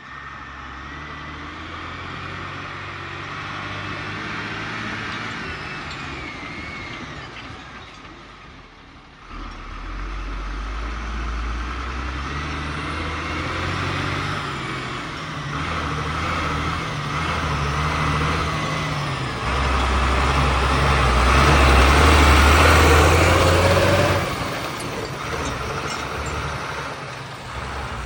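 T-150K wheeled tractor's diesel engine working under load. Its note rises and falls and drops briefly about a third of the way in, then builds to its loudest stretch about three-quarters through.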